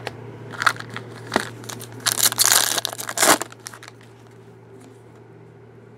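Foil wrapper of a trading-card pack being torn open and crinkled: a few light crackles, then a loud tearing rustle for about a second and a half around two seconds in.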